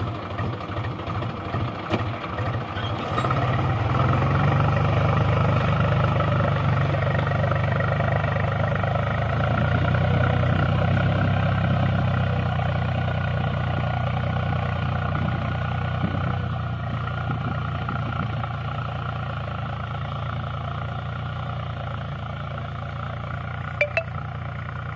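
Swaraj 735 FE tractor's three-cylinder diesel engine working under load as it pulls a reversible plough. The first few seconds have separate engine beats; it grows louder and steadier about four seconds in, then slowly fades as the tractor moves away. A brief click comes near the end.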